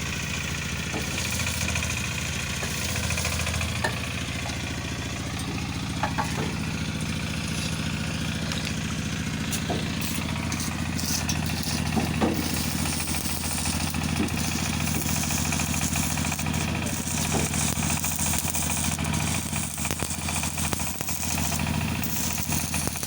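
An engine running steadily at idle, with a hissing crackle above it that grows stronger about halfway through and a few scattered clicks.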